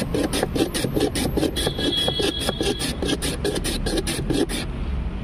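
A block of ice scraped over the blade of a wooden hand ice-shaving plane to make shaved ice for a gola: a fast, rhythmic rasping of about five strokes a second that stops near the end.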